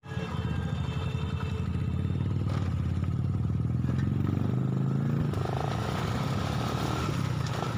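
Small motorcycle engine running at low speed, heard from on the bike, its pitch rising briefly about four seconds in and easing back just after five.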